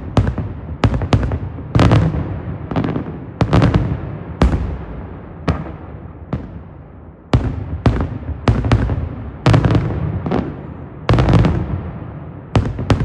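Daytime fireworks: a rapid, irregular string of loud aerial bangs, about one to three a second, each followed by an echoing rumble, with a brief lull about halfway through.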